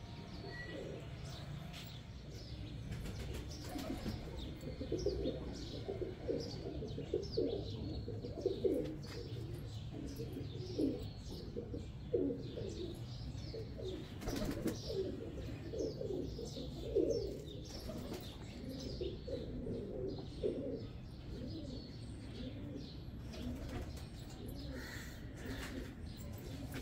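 Domestic pigeons cooing, a long run of repeated low coos through most of the stretch, thinning out near the end, with faint higher chirping and a steady low hum beneath.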